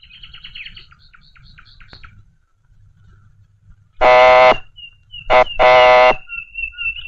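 A telephone ringing twice with a loud, harsh electronic buzz, about four seconds in. Thin high chirping sounds in the background.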